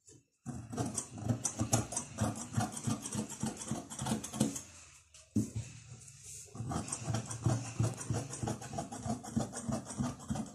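Large fabric shears cutting through cloth on a table: a fast run of crunching snips and blade rasps, with a brief lull about halfway through.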